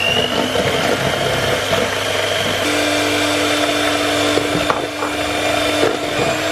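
Breville electric hand mixer running, its beaters whipping double cream that is being beaten until thick. A high motor whine climbs near the start and then holds steady, and a lower steady hum joins about two and a half seconds in.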